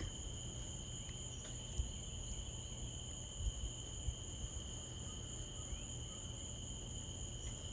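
Crickets trilling steadily, one high continuous tone over another still higher one, over a faint low rumble.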